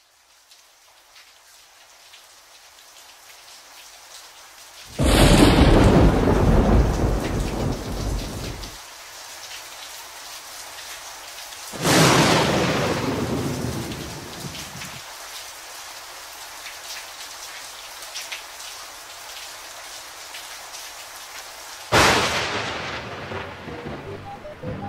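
Thunderstorm: steady rain fading in, with three thunderclaps about five, twelve and twenty-two seconds in. Each clap starts suddenly and rumbles away over a few seconds.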